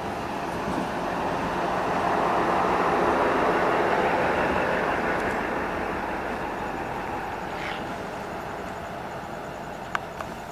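DEMU (diesel-electric multiple unit) passenger train pulling out of the station: its running noise swells to a peak a few seconds in, then fades as the train moves away. A few sharp clicks come near the end.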